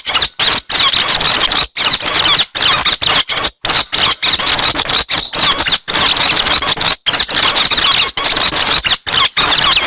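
Recorded birdsong of the bird called 'hec xoan' in Vietnamese, played as a bird-catching lure: a dense, loud stream of rapid high chirps and warbling trills. It is broken by frequent abrupt, clean gaps where the recording has been cut and spliced.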